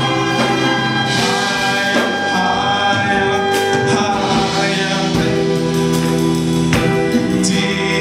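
A gospel choir singing, led by a male soloist on a microphone, with held notes under the voices and a few sharp beats.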